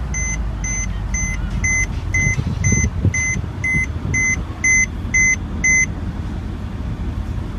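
Mercedes-Benz CLS63 AMG's 5.5-litre twin-turbo V8 idling just after start-up, while a warning chime beeps about twice a second and stops about six seconds in.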